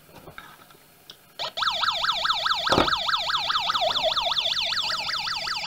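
Small bare loudspeaker cone, held with no baffle, playing a warbling siren-like test tone that sweeps up and down about five times a second, starting about a second and a half in. There is a light knock of handling near the middle.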